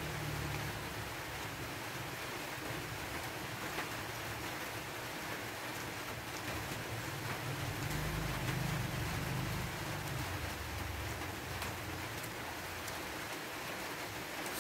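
A steady, even hiss with faint light clicks, the clicks fitting a spoon and fork against a plate during a meal.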